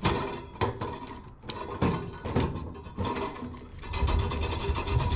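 A steel tool cabinet drawer being worked on its runners, giving a series of mechanical clicks and knocks several times a second. The drawer is rubbing along the bottom where the cabinet has been damaged.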